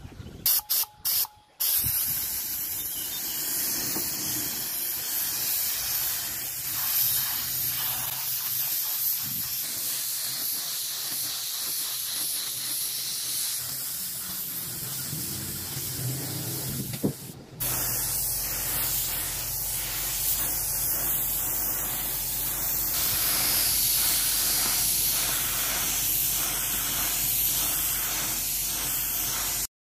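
A pressurised spray hissing: a few short bursts, then a long steady spray with one brief break about halfway, after which a low steady hum runs under the hiss until it cuts off.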